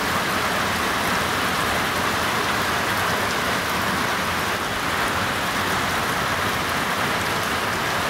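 Heavy rain pouring down, a steady dense hiss of drops hitting the ground and surroundings.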